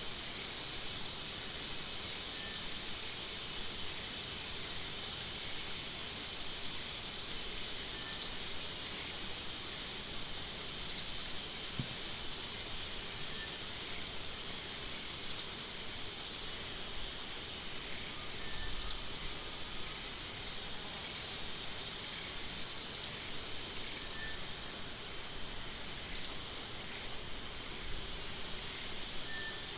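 Outdoor ambience: a steady high-pitched insect drone, with a bird giving short, sharp rising chirps every one to three seconds.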